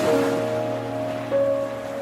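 Piano background music with sustained notes, with a brief rush of noise, like a wave, at the very start.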